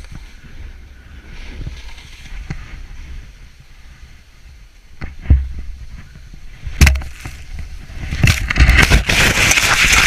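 Wind buffeting an action camera's microphone and snow hissing as a rider descends a slope that fractures into a slab avalanche. Two thumps come about halfway through and a couple of seconds later, then a loud, rough rushing noise takes over for the last two seconds.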